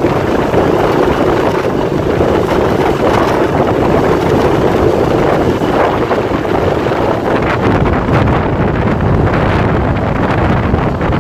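Steady wind rushing over the microphone of a moving motorbike, with the bike's engine and road noise running underneath.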